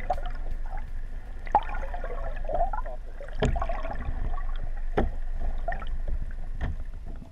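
Muffled water sounds picked up by a camera in its waterproof housing underwater beside a boat hull: a steady low rumble with bubbling and gurgling, and three sharp knocks.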